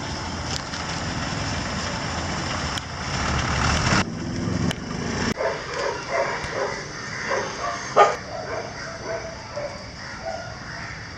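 Steady vehicle engine noise for the first few seconds, then a dog giving a string of short whimpering yelps.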